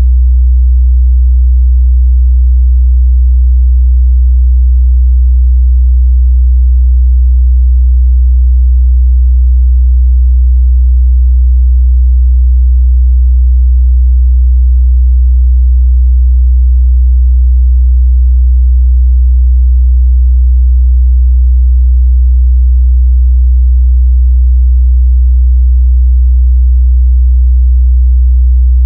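Steady, loud 62 Hz sine test tone, one pure low bass note held without change.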